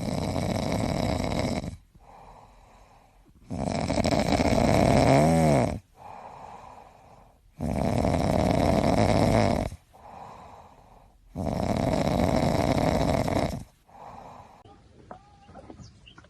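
A sleeping pet snoring in a slow, even rhythm: four loud, rasping snores of about two seconds each, roughly every four seconds, with quieter breaths between them.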